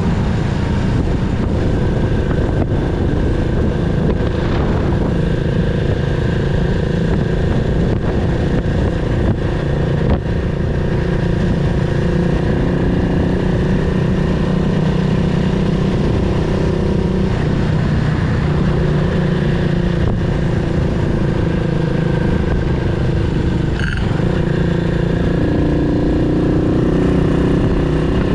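Yamaha SR400's air-cooled 400 cc single-cylinder engine running under way on a ride, its note shifting up and down with speed. A short sharp click about 24 seconds in.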